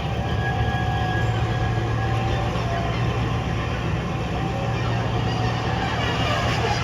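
Diema diesel switcher locomotive running steadily with a low engine drone while working a train of sugar wagons.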